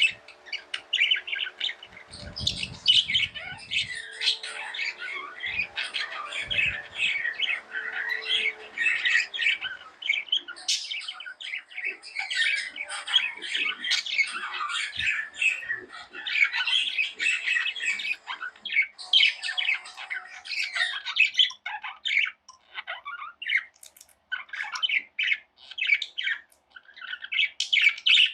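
Several small pet parrots chirping and squawking in rapid, overlapping calls. A brief low rumble comes about two to four seconds in.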